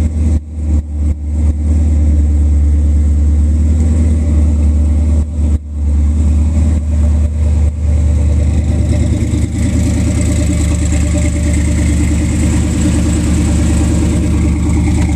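Supercharged big-block V8 with an 8-71 blower in a 1957 Chevy sedan delivery, running steadily at idle.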